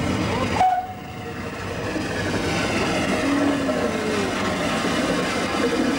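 Small ride-on miniature railway locomotive running along a raised garden track. A loud rushing noise cuts off abruptly a little over half a second in, then the running noise builds back up and stays steady.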